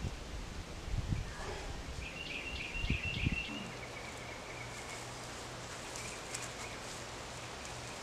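Outdoor ambience: a few dull low thumps in the first three and a half seconds, high chirping from small creatures around two to three seconds in, then a faint steady hum with weaker chirping.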